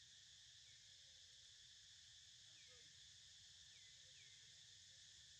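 Faint, steady insect chorus with a low hum underneath, and a few brief, faint falling chirps.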